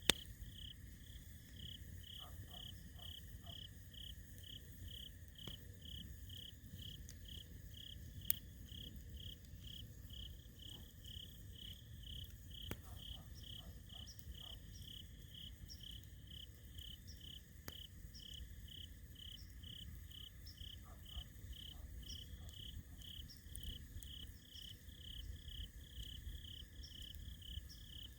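Insects chirping in an even pulse about twice a second over a steady thin insect trill, with a low hiss and a few sharp pops from a crackling campfire, the loudest about 8 seconds in.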